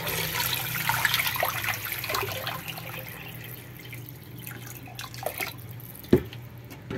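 Water poured in a stream into an aluminium pressure cooker pot over chicken pieces, splashing, loudest about a second in and tapering off by about four seconds. A single sharp knock near the end.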